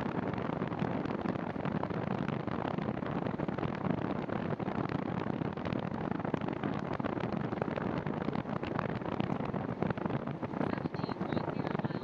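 Steady rushing of wind on the microphone mixed with the tyre noise of a bicycle rolling along a paved trail.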